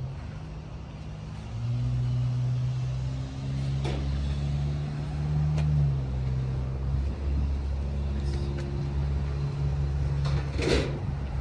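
A motor hums steadily, its pitch stepping up and down several times, with a couple of sharp clicks.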